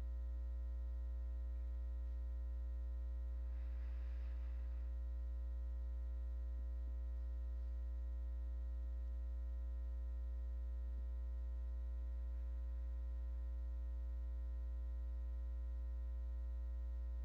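Steady electrical mains hum with a ladder of overtones, left in the recording during a silent pause. A brief faint rustle comes about four seconds in.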